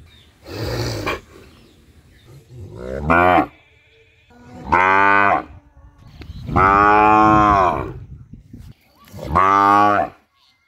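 Cow mooing repeatedly: a short breathy call, then four loud moos, the longest drawn out for about a second and a half, its pitch rising then falling.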